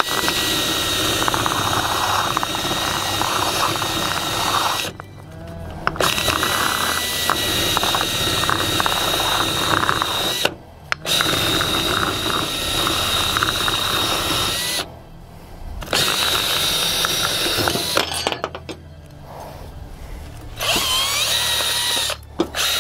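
Cordless drill spinning an abrasive sanding attachment against a painted gumball-machine part, scuffing the gloss off it before painting. The drill runs with a steady whine in several long stretches, stopping briefly about five, ten and fifteen seconds in, and easing off around eighteen to twenty seconds.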